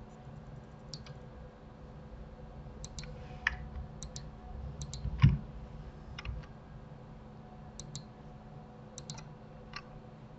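Computer mouse buttons and keyboard keys clicking while vertices are selected and moved in a 3D modelling program: scattered single and paired clicks, with one louder knock about five seconds in.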